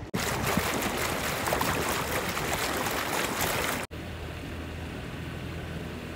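Motorboat underway: loud rushing wind and water noise. After a cut about four seconds in, a quieter steady low engine hum runs over the wash of water.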